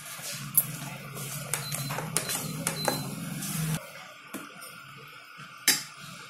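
Steel ladle clinking and scraping against a steel saucepan while fried balushahi are turned in bubbling sugar syrup, a run of clicks in the first half and one sharp clink near the end. A low steady hum runs under it and cuts off suddenly about four seconds in.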